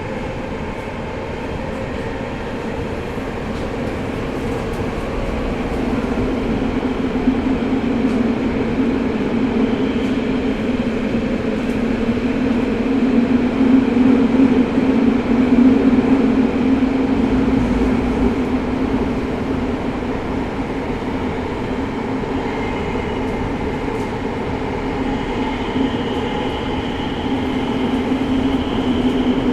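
Tokyo Metro 05 series subway train running through the tunnel, heard from inside the car: a continuous rumble of wheels and running gear that swells about halfway through and then eases off. A faint, thin high whine comes in during the last several seconds.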